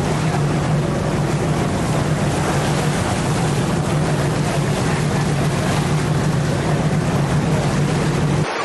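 Steady low hum of a cruise ship's machinery under a constant rush of wind and water noise on a deck, cutting off suddenly near the end.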